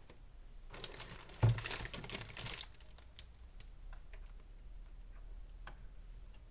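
Fast typing on the AOC GK500 mechanical keyboard with Outemu Red linear switches: a quick burst of keystrokes with one heavier thump about a second and a half in, then a few scattered single key presses.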